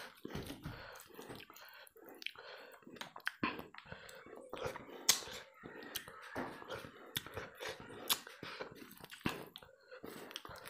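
Close-miked eating by hand: fingers squishing and mixing rice with curry gravy on a plate, with wet mouth smacks and chewing, heard as a string of irregular sharp clicks.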